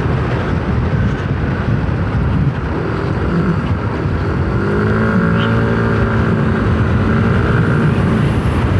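Yamaha Aerox 155 scooter's single-cylinder engine running while riding, under a dense rumble of wind and road noise on the helmet camera. A few seconds in, a steady engine tone stands out clearly for several seconds.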